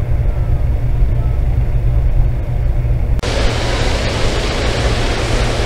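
Hot-air balloon propane burner firing, a sudden loud roar that starts about halfway through and holds steady, over a constant low rumble.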